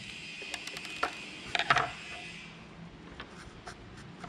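Small metal clicks and taps of a screwdriver and fingers working on a CCTV camera's lens-and-circuit-board module during disassembly, a cluster of sharp clicks one to two seconds in and a few fainter ticks after. A steady hiss underneath fades out about halfway.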